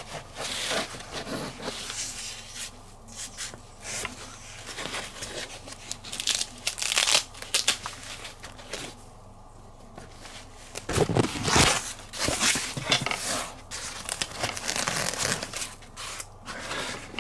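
Packaging being torn open and crinkled by hand while unwrapping an item from a thin mailed box: irregular ripping and rustling, loudest about two-thirds of the way through.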